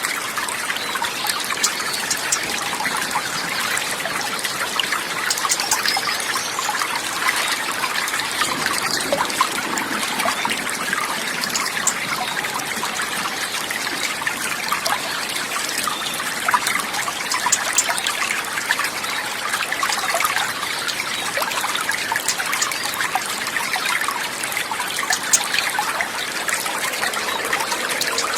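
Steady trickling and splashing of flowing water, like a small stream, with many small crackling splashes over an even rush.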